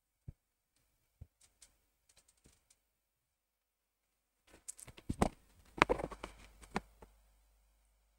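Computer mouse clicks and keyboard taps: a few single clicks spread over the first three seconds, then a quick run of louder clicks and taps from about four and a half to seven seconds in.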